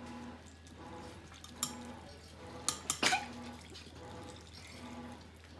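Metal spoon stirring instant ramen noodles in broth in a bowl, clinking against the bowl's side now and then, with a quick run of three clinks about three seconds in.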